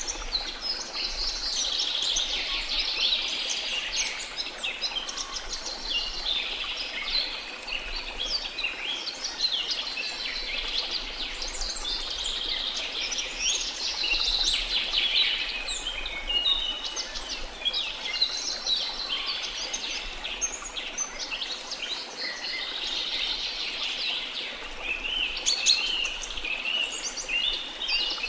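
Tropical rainforest ambience: many birds singing and chirping at once, a dense unbroken chorus of high trills and calls, over a steady rush of falling water from a waterfall.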